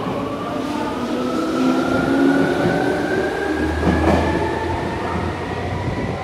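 Tokyo Metro Ginza Line subway train pulling out of the platform, its traction motor whine rising steadily in pitch as it accelerates, over the rumble of the cars and wheels, which deepens about halfway through.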